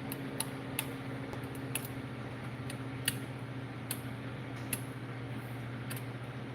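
A steady electric motor hum, with about six light, irregular clicks and taps over it as small parts are handled.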